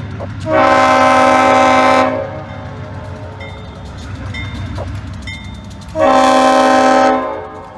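Diesel locomotive air horn blowing two long blasts about five seconds apart, a sign of a train sounding for a grade crossing. A steady low rumble runs beneath and between the blasts.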